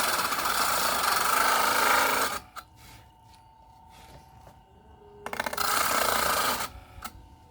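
Electric power tool cutting wood in two loud runs: the first stops abruptly a couple of seconds in, the second starts about five seconds in and lasts under a second and a half. A faint steady hum can be heard between them.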